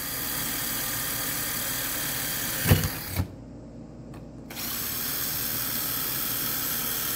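Electric drill with a small bit running steadily, drilling pilot holes through thin aluminum sheet. About two and a half seconds in come two sharp knocks, the loudest sounds here; the drill then stops for over a second and starts again.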